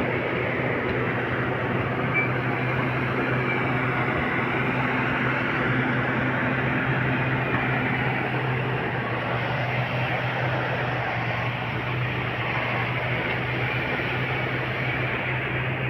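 A motor running steadily, an even drone with a constant low hum.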